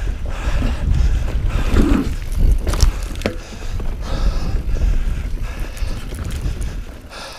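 Wind buffeting the helmet or chest camera's microphone as a mountain bike rolls fast down a dirt forest trail, with tyre noise and a few sharp clicks and rattles from the bike over bumps around the middle. It is loudest from about a second in and eases near the end.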